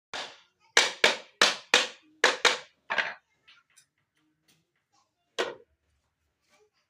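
Sharp knocks, about eight in quick, uneven succession over the first three seconds, then a single knock a couple of seconds later.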